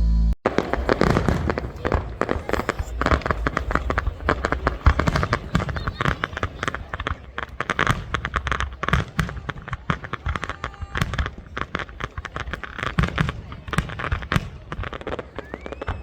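Fireworks going off in quick succession: a dense, continuous run of sharp bangs and crackles.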